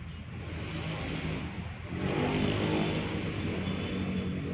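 A motor vehicle's engine running, growing louder about two seconds in.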